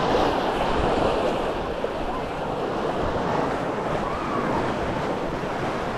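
Waves washing steadily onto a sandy beach, with wind buffeting the microphone.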